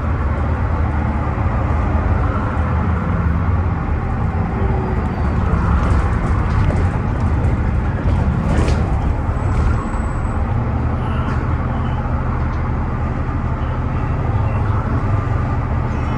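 Bus running, heard from inside the saloon: steady low engine drone and road noise, with a few clicks and a brief sharp high-pitched sound about halfway through. The bus is known for making an awful metallic sound.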